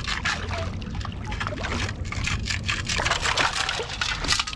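Digging and scooping gritty ground to recover a metal-detector target: a dense crunching, rattling scrape, loudest near the end.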